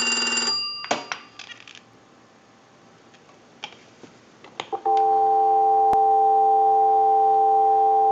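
The Western Electric 233G payphone's bell finishes its last ring, cutting off about half a second in. A few clicks follow. About five seconds in, a steady telephone dial tone comes on and holds.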